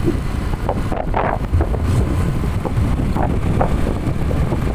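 Wind buffeting the microphone of a phone mounted on a moving Suzuki Avenis 125 scooter: a loud, steady low rumble with riding noise underneath.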